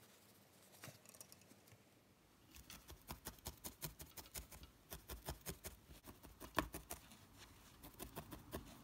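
Felting needle stabbing repeatedly through loose wool into a foam pad: faint, quick soft taps, about five a second, starting a couple of seconds in after a few quiet rustles of hands handling the wool.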